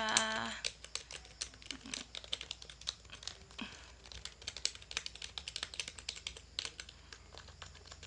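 Fast typing on a GTX300 gaming keyboard: a quick, irregular run of key clicks.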